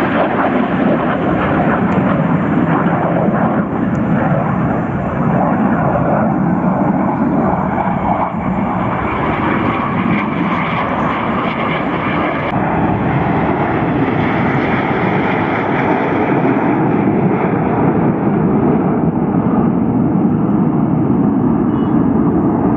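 Display jet aircraft flying past trailing smoke: loud, steady jet engine noise that swells slightly and never stops.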